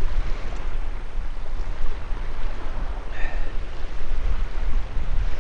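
Wind buffeting the microphone in gusts, with small waves washing on a pebble beach underneath.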